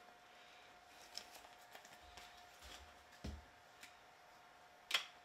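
Faint handling sounds in a quiet room: light rustles and small clicks, a soft thump a little over three seconds in and a sharper click near the end, over a faint steady hum.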